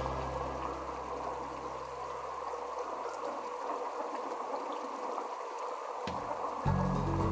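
Heavy rain falling, a steady even hiss of water. Low background music fades out in the first few seconds and comes back near the end.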